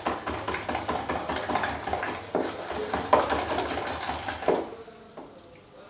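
Metal spatula stirring a cement-based coating slurry of powder and water in a plastic bucket: rapid, irregular scraping and clinking against the bucket as the mix is worked smooth. The stirring eases off near the end.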